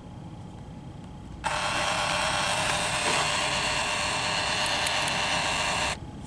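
DYMO LabelManager 160 handheld label maker printing a label, its small feed motor whirring steadily as the tape feeds through properly. The whir starts suddenly about a second and a half in, runs for about four and a half seconds and stops suddenly.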